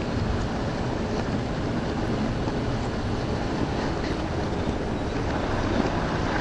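Steady rumble and hiss of an underground metro station's ambience, with no distinct events.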